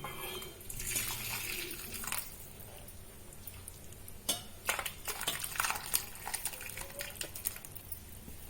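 Kitchen utensils clinking and knocking lightly against a cooking pot, a few scattered clinks, most of them in the second half, after a soft noisy stretch at the start.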